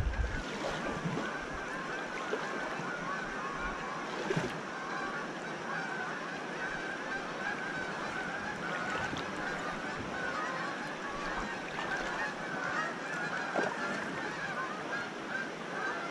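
A flock of Canada geese honking continuously as they fly, many calls overlapping, over the steady rush of swift river water.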